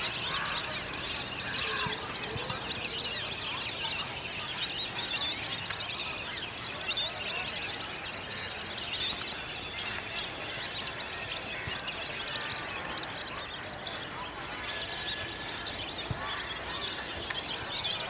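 A large flock of birds calling together, a dense chorus of many overlapping quick high chirps and whistles without a break.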